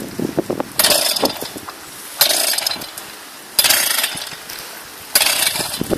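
Small two-stroke engine of a homemade soil auger being pull-started: four sharp recoil-starter pulls about a second and a half apart, each dying away without the engine settling into a steady run.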